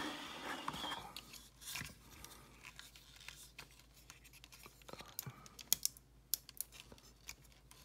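Hard plastic parts of a Mastermind Creations Gravus transforming robot figure being handled: scattered small clicks and scrapes. There is a busier patch near the start and a few sharper clicks about five to six seconds in.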